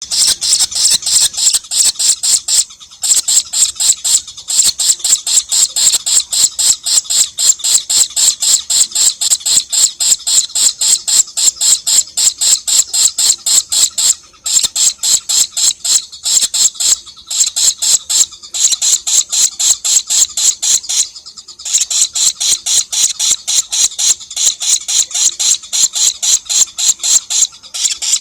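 Young lovebird giving a long, rapid run of high-pitched chattering notes, about five or six a second, broken by a few brief pauses. This is the 'ngekek' chatter, which the owner thinks the bird may still be learning.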